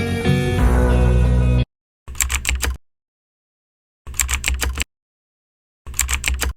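Guitar background music that stops abruptly about a second and a half in, followed by three short bursts of rapid keyboard-typing clicks separated by dead silence.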